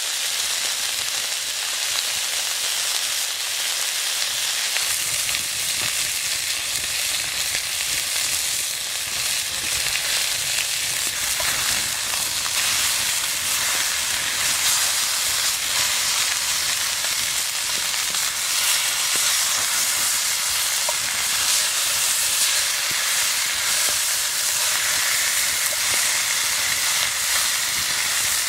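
Meat frying, with a steady sizzle and small crackles here and there.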